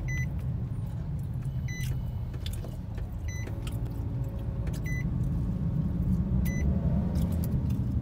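Inside the cabin of a Nissan X-Trail driving slowly: a steady low engine and road rumble that grows a little louder and rises slightly in pitch from about halfway as the car picks up speed. Short faint clicks recur about every second and a half.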